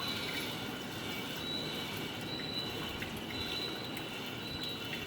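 Smart toilet bidet spraying water steadily during a women's wash, with a faint high tone coming and going as the spray rod is moved.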